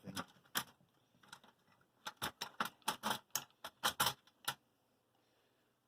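Sharp small clicks and taps from the cooling fan and its screws being handled and removed: one click early on, then a quick run of about a dozen clicks over two and a half seconds.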